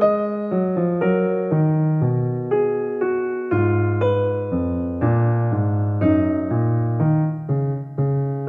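Background piano music: a slow run of single melody notes over lower bass notes, about two notes a second, each note struck and fading.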